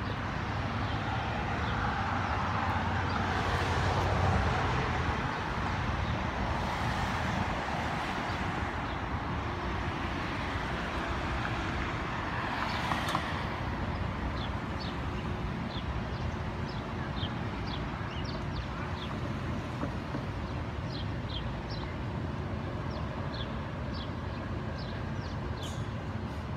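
Street traffic: a vehicle passes with a swell that builds and fades over the first several seconds, and another passes about halfway through. Through the second half, birds chirp in short high notes over the steady street noise.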